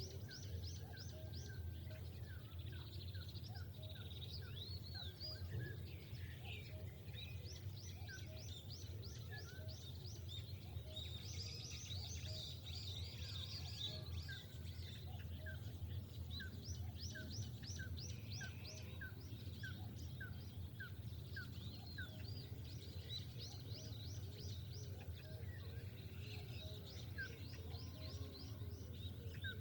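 Several birds singing and calling: repeated fast high trills and a long run of evenly spaced short chirps, about two a second, over a steady low rumble.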